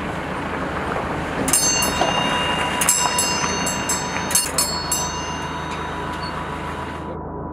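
Metal Buddhist prayer wheel turning with a steady rumble, while small bells ring in a run of quick, uneven strikes from about a second and a half in to about five seconds. The high ringing and hiss drop away near the end.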